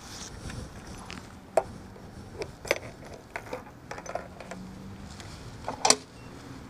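Scattered sharp metallic clicks and clinks, about half a dozen, with the loudest near the end, from handling at a gas pump just before refuelling a motorcycle.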